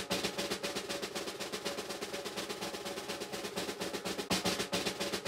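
Drum roll music: a rapid, even snare roll held over sustained pitched tones.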